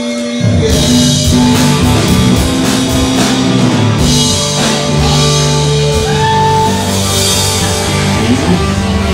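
A live rock band playing electric guitar, bass and drums. The full band comes in loudly about half a second in, with cymbal crashes over a steady bass line.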